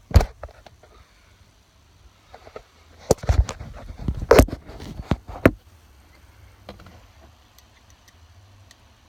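A series of sharp clicks and knocks from a tool and small parts being handled, one just after the start and a dense cluster from about three to five and a half seconds in.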